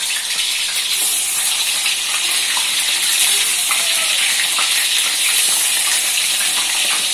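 Tofu frying in hot oil: a steady sizzle with scattered small crackles and pops.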